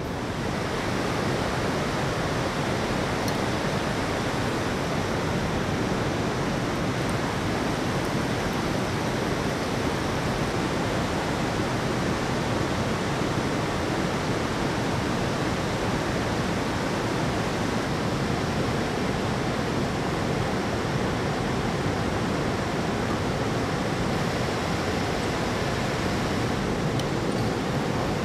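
River water rushing, a steady even noise that does not let up.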